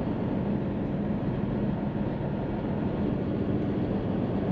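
Steady diesel engine and road noise heard inside the cab of a Hino truck tractor unit driving along the expressway.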